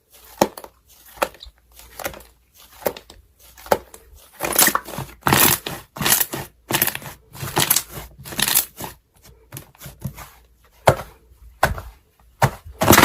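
Slime being squeezed and pressed by hand, making a run of short, irregular squelches that become longer and denser from about four seconds in.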